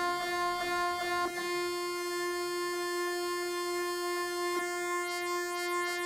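Music built from layered MRI scanner recordings: several steady, sustained electronic tones held together, with a repeating high sweeping tone coming in near the end.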